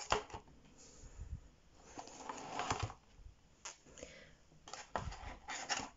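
Hard plastic foot forms being handled and set down on a table: scattered light clicks and knocks with some rustling.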